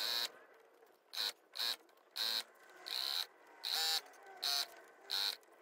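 JACK sewing machine stitching in short stop-start runs, about eight brief whirring bursts of well under a second each, as a zip tape is eased round a corner between runs.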